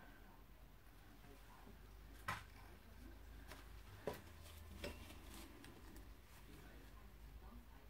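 Near silence: room tone with a few faint clicks and handling noises, about three of them, spaced about a second apart near the middle.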